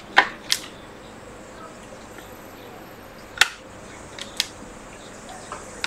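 A few short, sharp clicks and taps from an iPhone 7 display being handled and pressed against the phone's housing while it is fitted, over a faint steady hiss.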